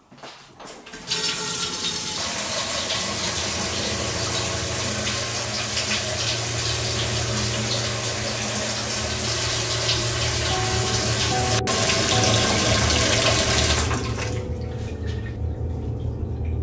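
Kitchen tap running into a metal sink: water gushes on suddenly about a second in, runs steadily, and shuts off about two seconds before the end.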